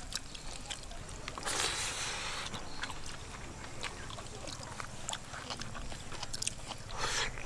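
Quiet eating sounds: fingers mixing rice and fish curry on a banana leaf, with scattered small clicks and crackles. A short rush of noise comes about one and a half seconds in and again near the end.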